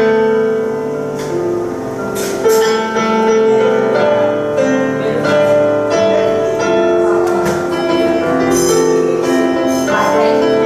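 Grand piano played solo in a free improvisation: held chords in the middle register with new notes and chords struck over them about every second.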